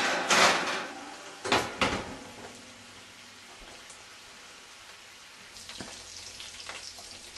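Cube steak sizzling in a frying pan. Three loud bursts of noise in the first two seconds, then a faint, steady sizzle that picks up a little near the end.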